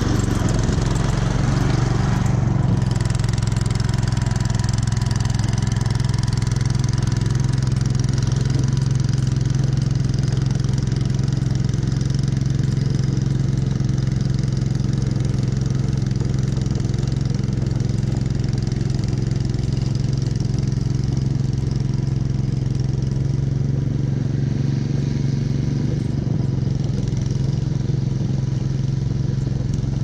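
Two-stage snowblower engine running steadily under load, a constant low hum with a hiss above it.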